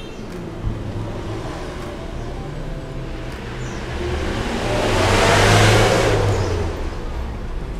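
Cylinder boring machine running on a Yamaha motorcycle cylinder block with a steady low motor hum, while a broad rush of noise swells up from about three and a half seconds in, peaks, and fades again near the end.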